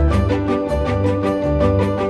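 Background music with a steady beat, a bass line and a melody of held pitched notes.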